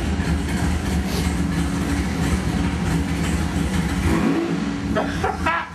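468 cubic-inch big-block Chevy V8 running steadily on an engine dyno; a little past four seconds in its note drops and wavers as the revs change.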